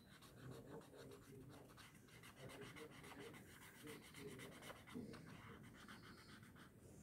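Faint scratching of a pen tip on paper, in short irregular strokes, as a drawn line is gone over again and thickened.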